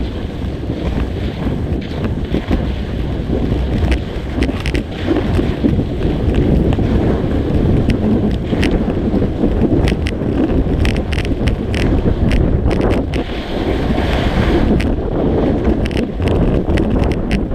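Wind buffeting a GoPro's microphone on a fast downhill ski run, over the steady scrape of skis carving packed snow. Scattered sharp clicks come through from about four seconds in.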